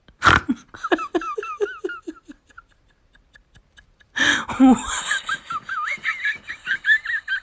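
Laughter: a burst of short 'ha-ha' notes falling in pitch, then, after a brief gap, a longer run of higher-pitched, squealing laughter.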